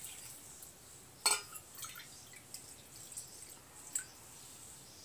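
Water poured from a small steel bowl into flour in a steel pan, in a few short splashes and clinks of steel, the loudest about a second in.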